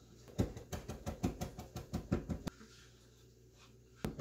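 Chef's knife finely chopping fresh mint on a cutting board: a quick run of knife knocks, about five or six a second, then a pause of about a second and a half before the chopping starts again near the end.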